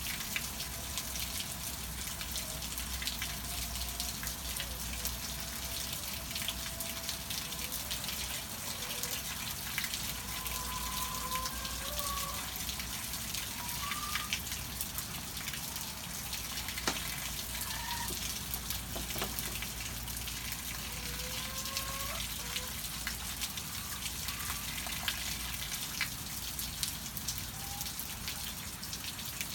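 Steady rain falling, with scattered drips. Hens in a henhouse give short, soft calls now and then.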